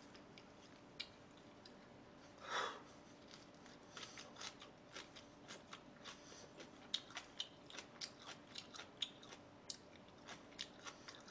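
Crunchy chewing of salted napa cabbage close to the microphone, with short crisp crunches several times a second from about four seconds in, after one brief louder noise.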